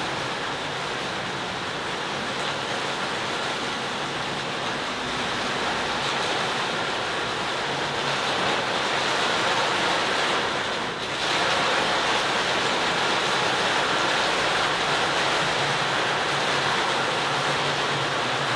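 Steady hiss of heavy rain on a moving car and its tyres on the wet road, heard from inside the car. It grows slightly louder and dips briefly about eleven seconds in.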